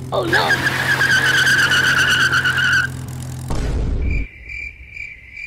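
Cartoon sound effects: a vehicle's tyre screech, a wavering high squeal lasting about three seconds over a steady low engine hum, then a dull low thud of a crash, followed by a quieter repeating high chirping.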